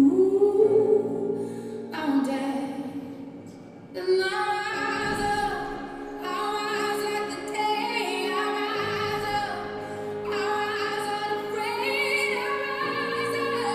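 A female voice singing a slow song, with long wavering notes over steady held notes of accompaniment; the sound dips briefly about three seconds in before the singing resumes.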